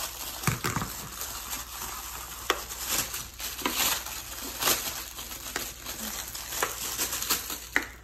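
Plastic packaging rustling and crinkling as gifts are unwrapped, with scattered light clicks and taps of plastic fidget toys being handled.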